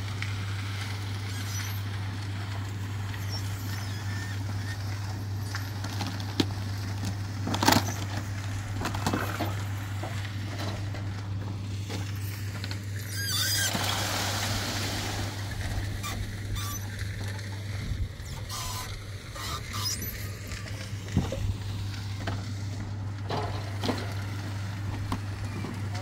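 Drum concrete mixer running with a steady low hum, under scattered knocks and scrapes of shovels and a wheelbarrow. About fourteen seconds in, wet concrete slides and rushes out of a tipped wheelbarrow onto the roof slab.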